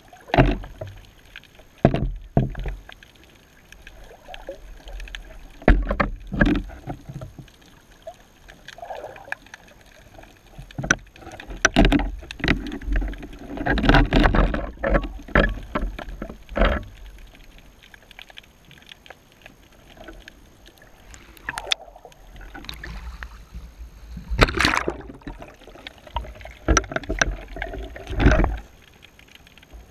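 Underwater sound heard through a submerged camera housing: wave surge rumbling in swells, with irregular sharp knocks and thuds as the rig is rocked and bumped about. A faint steady high whine sits underneath.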